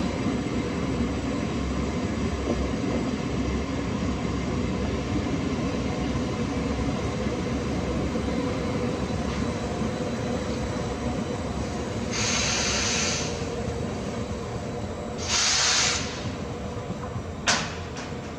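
A passenger train moving through a station with a steady rumble. Two short bursts of hiss come about twelve and fifteen seconds in, and there is a sharp click near the end.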